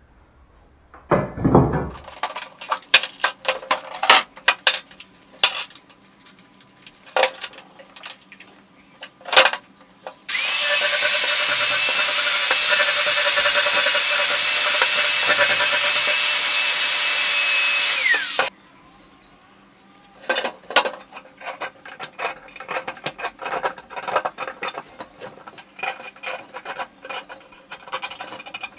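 Knocks and clinks of metal muffler parts being handled, then an angle grinder with a flap disc runs for about eight seconds, grinding the cut edge of a motorcycle muffler with a steady high whine, and winds down with a falling pitch. More light metallic clicking and tapping follows.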